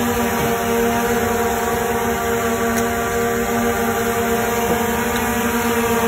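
Small quadcopter drone hovering close by, its four propellers making a steady whine.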